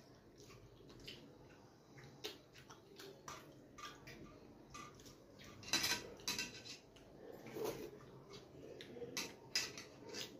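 Fingers mixing and gathering rice and curry on a stainless steel plate, scraping and tapping the metal in a string of short, irregular clicks and scrapes, loudest about six seconds in.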